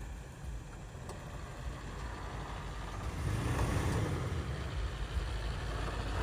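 Toyota Tacoma pickup driving slowly past on a sandy dirt trail: its engine running and its tyres rolling over loose dirt, growing louder as it comes close and passes about four seconds in.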